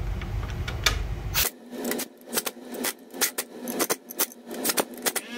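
Tools being handled on a small engine: a run of irregular sharp clicks and knocks, several a second, starting about a second and a half in.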